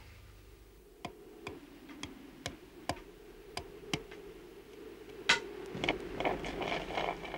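Sharp tool blows on wood, somewhat uneven at about two a second, with the loudest blow a little past the middle, over a steady low hum. A rasping, scraping sound joins in near the end.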